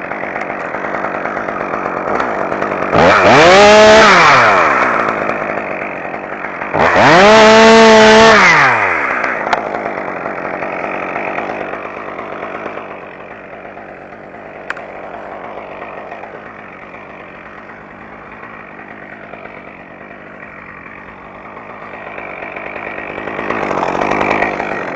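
Chainsaw running at idle, revved up hard twice for a second or two each, about three and seven seconds in, falling back to idle after each, with a smaller rise in speed near the end.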